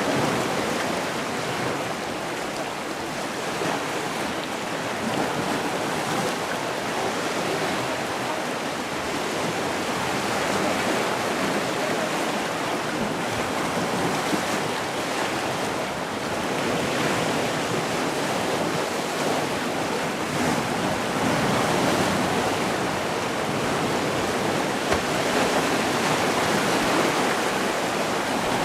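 Sea waves washing onto a shore in a steady, gentle surf, swelling and easing every few seconds.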